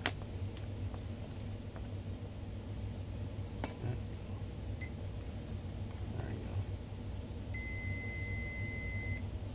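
Multimeter continuity beeper giving a steady high-pitched beep about two-thirds of the way through, lasting under two seconds, after a few light clicks. The beep signals an unbroken circuit in the alternator part being tested.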